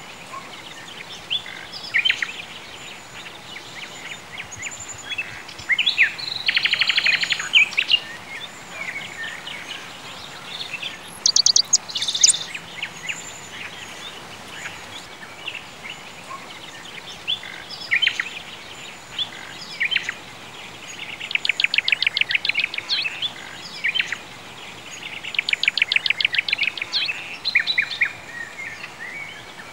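Birdsong ambience: several birds chirping and calling, with rapid trills recurring a few times, over a steady faint hiss.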